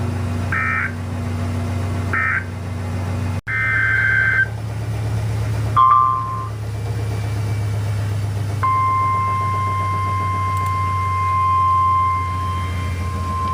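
NOAA Weather Radio Emergency Alert System signals over a steady low radio hum: two short data bursts, the end-of-message code, a dropout, another data burst and a brief tone, then the steady 1050 Hz warning alarm tone starting about nine seconds in.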